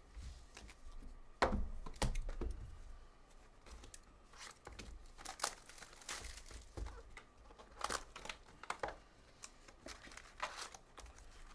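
Trading card pack wrappers crinkling and tearing as packs are ripped open by hand, in scattered short rips and crinkles, the loudest a little over a second in.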